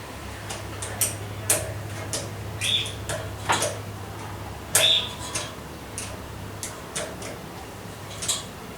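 Homemade air compressor running with a steady low hum during a pressure test, with scattered clicks and ticks and two short high chirps.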